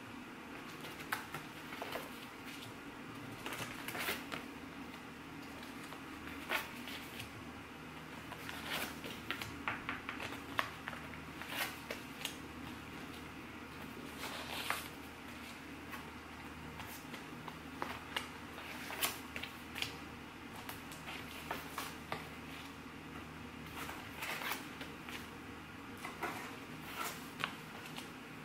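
Paper sticker sheets rustling and flicking as they are thumbed through in cardboard bins and pulled out, with scattered light taps and clicks over a steady low hum.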